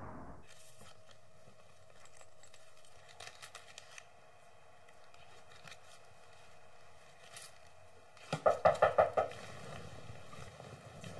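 Faint clicks and rustles of a wallet and coin purse being handled, then about eight seconds in a rapid burst of about six loud raps lasting about a second, a caller knocking at the front door.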